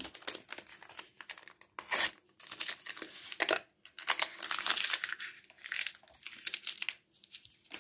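A small paper sachet of vanilla sugar being torn open and crinkled by hand: a run of crackling rustles and tearing noises with short pauses between them.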